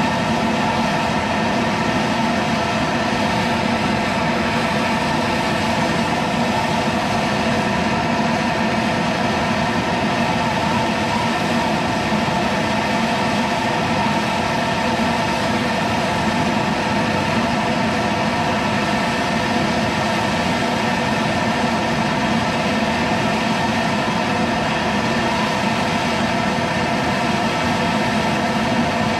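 Handheld gas torch burning with a steady, loud hiss, its flame held on a seized, rusted-in bolt to heat it loose.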